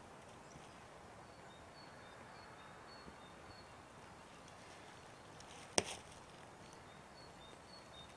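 Faint outdoor night ambience with a short, high chirp repeating about twice a second, broken about six seconds in by a single sharp crack.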